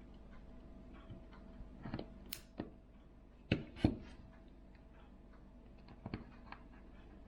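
Scattered light clicks and taps of small tools and parts against a smartphone being taken apart, with two louder clicks about three and a half seconds in and a few more near the end. A faint steady hum lies underneath.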